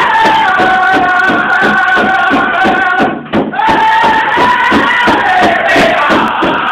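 Powwow drum group: several men striking a large hand drum in a steady beat while singing together in high, held phrases that fall in pitch. There is a short break about three seconds in, then a new high phrase starts.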